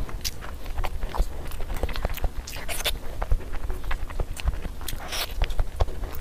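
Close-miked chewing and wet mouth smacks of someone eating boiled eggs in masala gravy, a quick irregular patter of small clicks, with squishing as fingers break into a sauce-coated egg.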